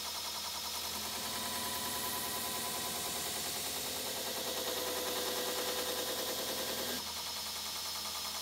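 Belt grinder running with a steel knife blade, held in an aluminium grinding jig, pressed against the sanding belt: a steady hiss of steel being ground. The grinding stops suddenly about seven seconds in as the blade comes off the belt, leaving the grinder running on more quietly.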